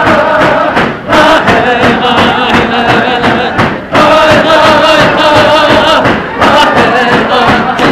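Tlicho (Dogrib) drummers singing a drum-dance song together over the beat of hand-held frame drums, the chanted phrases breaking off briefly about a second in, near four seconds and again past six seconds.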